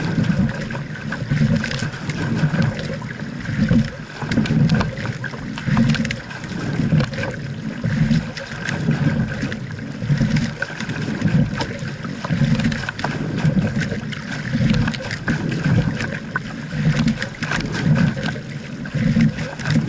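Double scull being rowed at a steady stroke: water rushing along the hull swells and fades about every two seconds with each stroke. Sharp clicks and knocks come from the oars working in their oarlocks.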